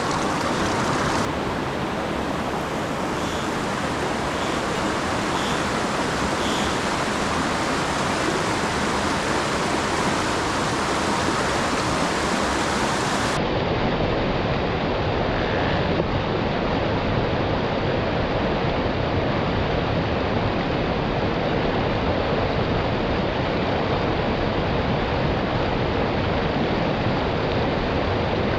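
Steady rushing of a mountain stream swollen by typhoon rain, running loud and full; about halfway through the rush turns duller.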